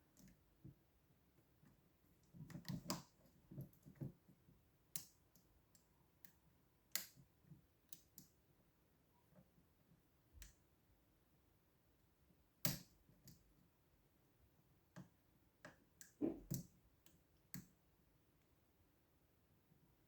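Faint, irregular clicks and taps of a lock pick and tension wrench working the pins inside a Mauer MG redline lock, with a few louder clicks among them. The first pin is refusing to set properly.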